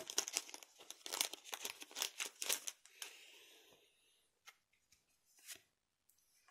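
A Weiß Schwarz foil booster pack being opened, its wrapper crinkling for about the first three seconds, followed by a few soft clicks as the cards are handled.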